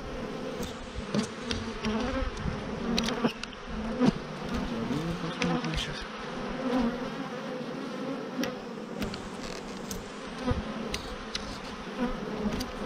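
Honeybees buzzing thickly around an opened hive, with single bees humming close past in wavering tones. These are bees the beekeeper calls extremely aggressive. Scattered sharp clicks and knocks come from wooden frames being pried loose with a hive tool and lifted out.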